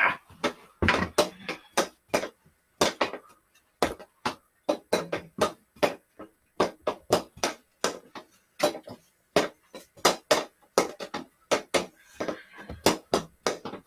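Hockey stick blade tapping a small stickhandling ball back and forth on carpet: quick, sharp clicks at an uneven pace of roughly three a second.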